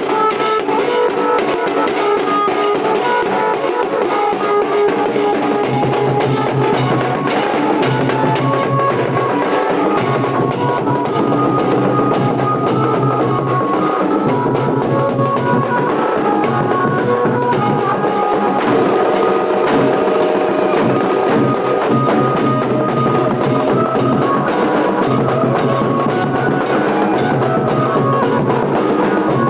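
Nashik dhol band playing: dhol drums beating a steady, dense rhythm with a melody line over them.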